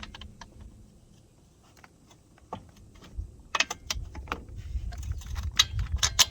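Small metal parts and hand tools being handled: scattered light clicks and clinks that start about two and a half seconds in and come thicker near the end.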